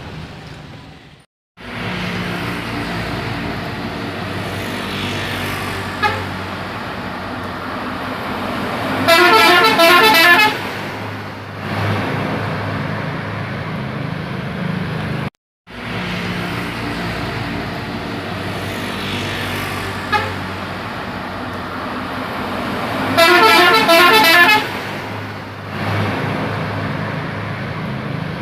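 Telolet bus horn, a multi-tone musical horn, sounding a short run of notes twice, each lasting about a second and a half, over steady vehicle engine and traffic noise.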